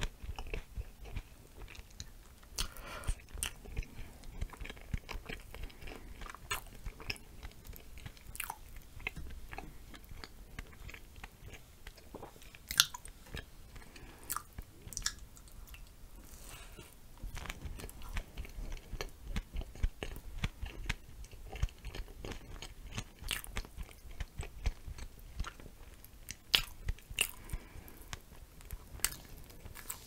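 Close-miked eating: chewing and biting into sour glazed donut with whipped cream and blueberries, with irregular sharp mouth clicks throughout.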